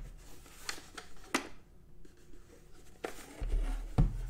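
Siglent SDS1202X-E bench oscilloscope's plastic case being handled and turned over on a desk: a few light clicks and rustling, then a dull thump about four seconds in as it is set down upright.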